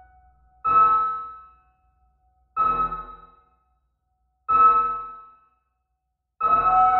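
Electronic music of software-generated keyboard-like tones: three separate chord strikes about two seconds apart, each dying away within a second into silence, then a held chord comes in near the end.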